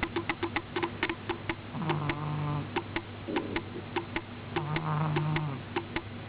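Sleeping cat snoring: runs of quick fluttering clicks alternate with a low droning tone about a second long, twice.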